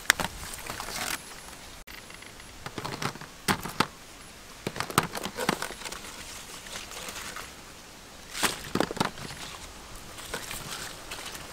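Eggs and vegetables handled in a wicker basket: scattered light clicks, taps and rustles at irregular intervals.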